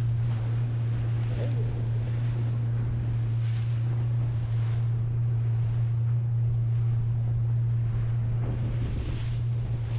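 Pontoon boat's outboard motor running steadily, a constant low hum, with wind buffeting the microphone and water rushing past the hull.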